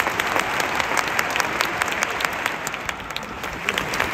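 Large stadium crowd applauding, thousands of hands clapping at once, easing slightly about three seconds in.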